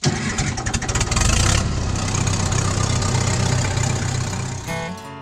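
Engine running hard, louder and brighter about a second in, then easing off. Acoustic guitar music comes in near the end.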